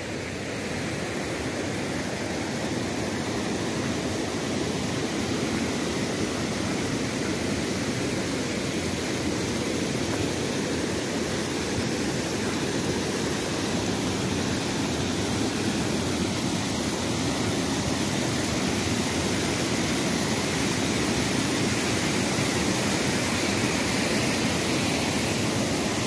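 River rapids rushing over rock slabs: a steady rush of white water that grows gradually louder over the first several seconds.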